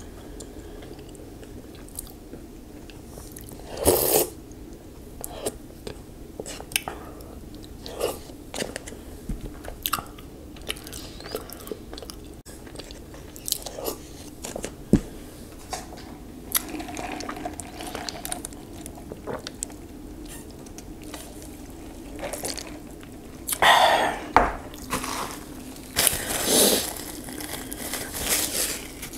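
A person chewing and crunching food close to the microphone, with scattered short clicks and taps.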